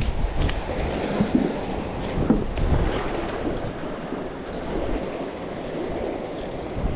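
Wind buffeting the microphone, with water washing against the shore as a steady rushing noise.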